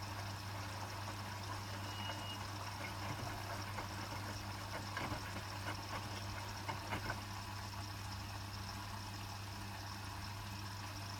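Hotpoint WMFUG 942 washing machine in its second rinse: water trickling and splashing in the drum over a steady low hum, with a few small splashes or ticks near the middle.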